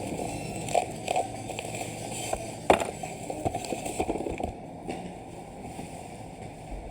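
Plastic trash bin being handled during unboxing: a run of clicks and knocks, the sharpest a little under halfway through, growing sparser later on.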